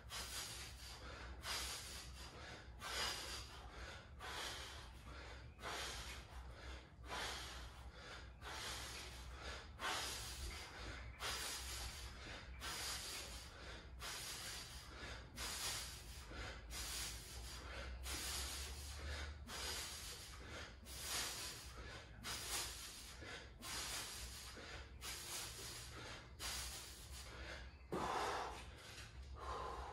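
Hard, rhythmic breathing of a man doing kipping chest-to-bar pull-ups: a sharp, forceful breath with each rep, about three every two seconds.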